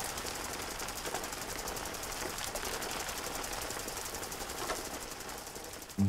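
Rotating water sprinkler spraying: a steady hiss of water with a fast, even rattle running through it, stopping just before the end.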